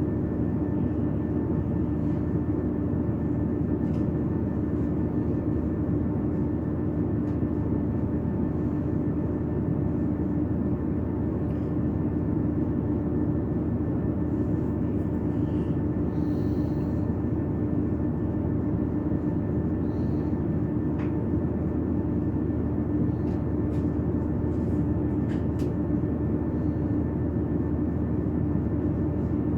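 Steady drone inside a train carriage: a constant engine and running hum that holds the same pitch throughout, with a few faint ticks.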